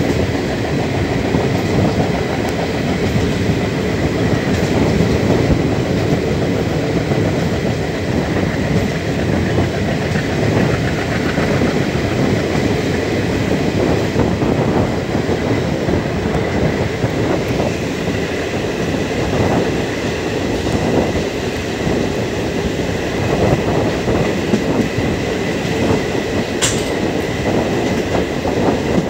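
Passenger express train running at speed, heard from a coach doorway: a steady, loud rumble of the wheels on the rails, with a faint steady whine above it and one sharp click near the end.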